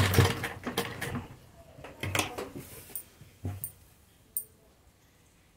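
A domestic sewing machine's stitching runs down and stops within the first half-second. Then comes cloth rustling with a few light clicks and one sharp tick as the garment is pulled around and repositioned under the presser foot.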